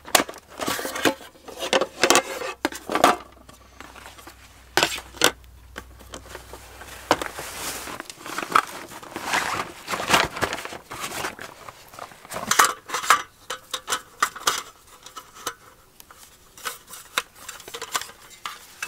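Cooking gear being handled and set out: irregular clinks, knocks and clatters of utensils and dishes.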